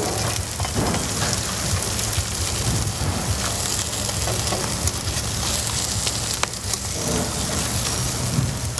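Food frying on a hot street-food griddle: a steady sizzling hiss over a low burner hum, with a few light clicks of utensils.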